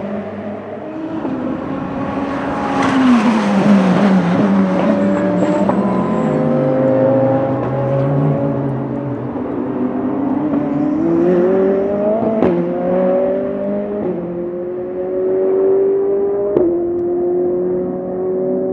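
Ferrari 488 GT3 race car's twin-turbo V8 running hard. Its pitch falls a few seconds in, then climbs under acceleration, with sudden drops at two gear changes about twelve and sixteen seconds in.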